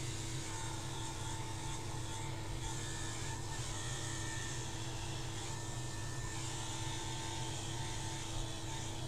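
Electric hair clippers buzzing steadily as they shave off long head hair and a beard, the pitch shifting slightly as the blades bite into the hair.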